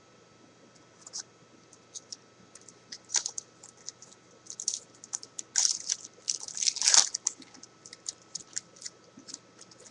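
Foil wrapper of a trading card pack crinkling and crackling as it is torn open and handled, sparse at first and heaviest about two-thirds of the way through.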